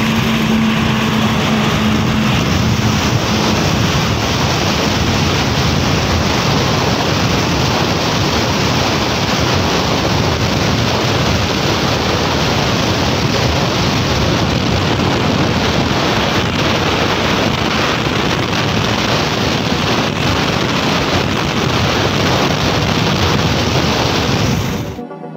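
Steady rush of wind over the microphone with the road noise of a motorcycle riding at highway speed. It cuts off suddenly near the end.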